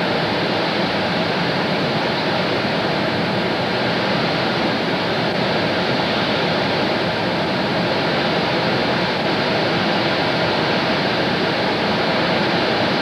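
Steady, even hiss with no other events: the background noise of an early-1980s home video camera recording in a quiet room.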